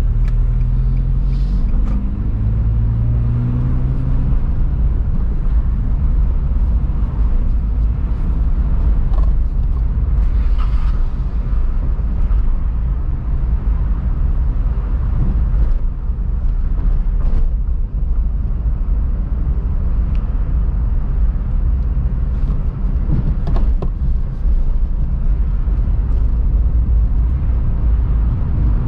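A car driving along town streets: a steady low rumble of engine and road noise. In the first few seconds the engine's pitch rises as it accelerates, and a few sharp knocks come in the second half.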